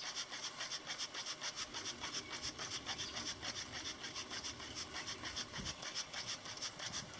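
Trigger spray bottle of Simple Green cleaner pumped quickly onto an air filter, a steady run of short spritzes at about four to five a second.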